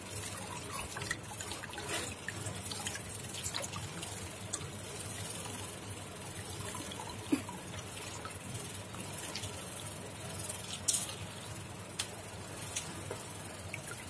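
Water trickling out of an RO membrane housing into a steel bowl as the membrane is back-flushed with reversed flow to push out trapped dirt and salt, with scattered drips and a few sharper clicks.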